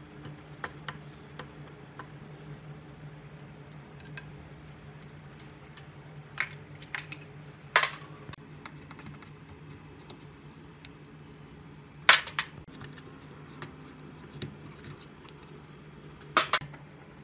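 Light clicks and a few sharp knocks of hard plastic TV cabinet parts and hand tools being handled on a wooden workbench, over a steady low hum. The loudest knocks come about a third of the way in, past the middle, and twice near the end.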